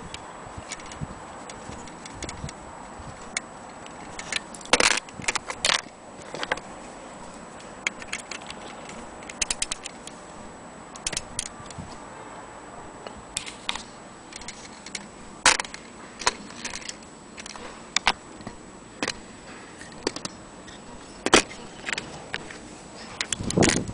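Light, irregular clicks and clinks of an antique 400-day anniversary mantle clock's metal and glass parts being handled, with a louder cluster of knocks near the end.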